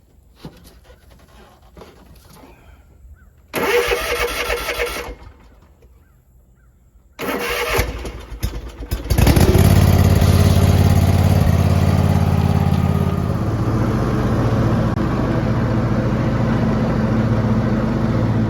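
Snapper zero-turn mower engine cranked by its starter in two short tries, the second catching about nine seconds in and settling into a steady run, then stopping near the end. The starter engages without clicking, now that the starter solenoid has been replaced.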